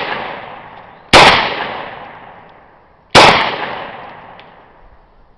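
.40 caliber handgun fired twice, about two seconds apart, each sharp shot trailing off in a long echo; the tail of a previous shot is fading at the start.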